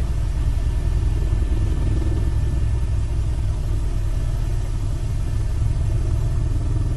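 Steady low engine rumble, with no rise or fall in pitch and no distinct impacts.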